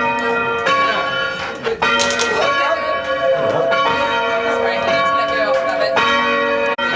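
Church tower bells being rung by rope, striking again and again, each tone ringing on into the next strike.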